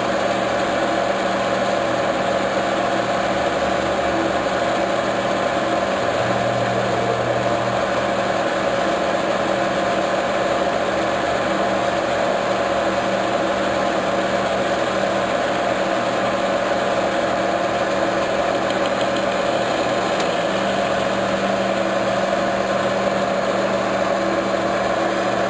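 Metal lathe running steadily, its spinning chuck and shaft under a turning cut: a constant machine hum with several steady tones over an even noise.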